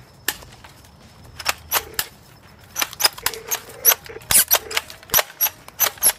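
Toy guns firing: an irregular run of sharp cap-gun pops, sparse at first and coming thick and fast from about a second and a half in.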